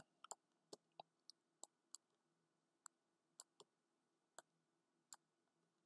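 Faint computer mouse clicks, about a dozen at irregular intervals, as objects are selected and deleted on screen.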